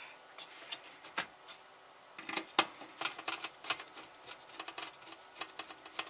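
Small metal screws clicking and rattling as fingers sort through a cup of assorted screws. A few separate clicks at first, then a fast, uneven run of clicks from about two seconds in.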